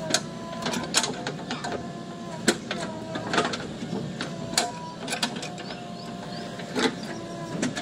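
JCB 3DX Plus backhoe loader working: a steady mechanical whine over a low rumble, broken by irregular sharp metallic clanks and knocks.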